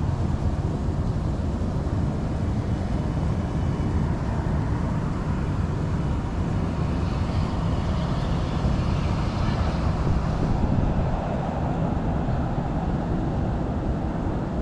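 Steady low rumble of road traffic, with a hiss that swells and fades from about seven to ten seconds in.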